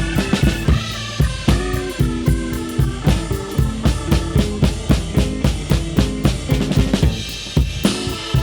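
Live blues band playing an instrumental passage. The drum kit's bass drum and snare keep a steady beat under sustained chords.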